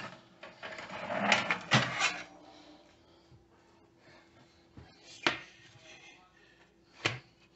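Clattering of kitchen pans and utensils being handled for about two seconds. A metal pizza tray is then set down with a sharp knock on a glass-ceramic stovetop about five seconds in, followed by another single knock near the end.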